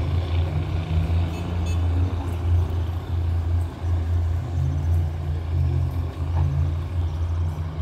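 Diesel locomotive of a stopped commuter train idling: a steady low engine drone.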